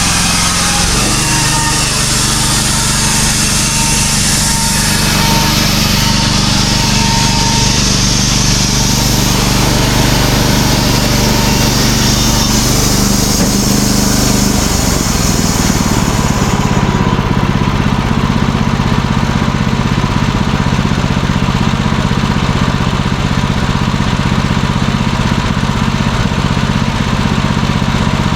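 Wood-Mizer portable bandsaw sawmill running steadily under engine power, with a high hiss that drops away about two-thirds of the way through while the engine keeps running.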